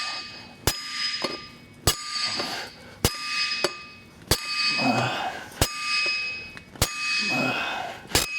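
Two-pound hammer striking a flat-headed steel piece set on wheel studs, driving them into a Chevrolet 3500HD rear hub until they seat: seven ringing metal clangs, a little over a second apart.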